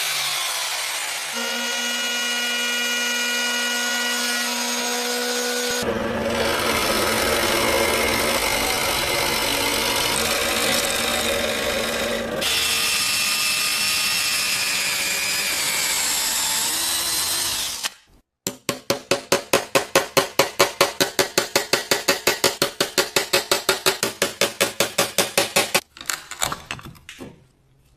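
Workshop tool noise in several short cuts. First a power tool runs with a steady whine, then rough grinding or rubbing noise. After a short break comes a rapid, even stroking of about five strokes a second.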